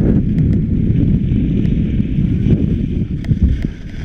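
Wind buffeting the microphone while skiing downhill, a loud steady rumble with skis hissing over the snow and a few faint clicks.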